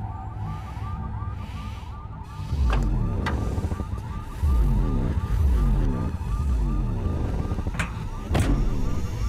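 An electronic alarm warbling over and over, about four cycles a second, over low rumbling swells. Sharp clicks and heavy thuds come about three seconds in and near the end, from a car trunk lid being handled and shut.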